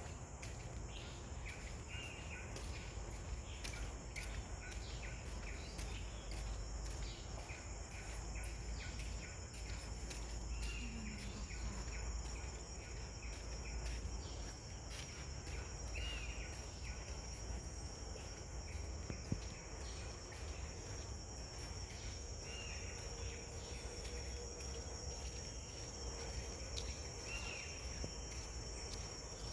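Insects, crickets among them, chirring steadily in a high, pulsing chorus. A short call repeats every five or six seconds, over a low rumble.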